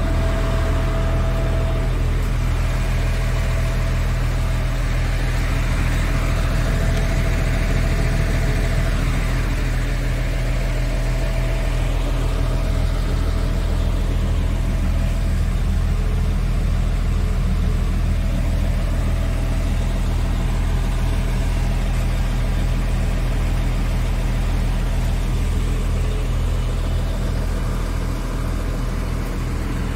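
Scania S tractor unit's engine idling steadily, an even low drone.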